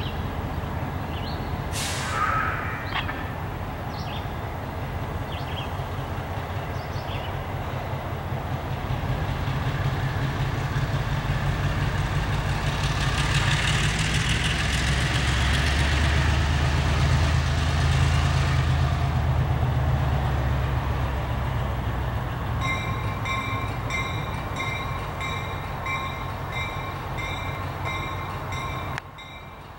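Diesel engine of a Reading & Northern switcher locomotive running as it moves slowly forward, swelling louder with a hiss midway. About three-quarters of the way in, a bell starts ringing steadily about twice a second.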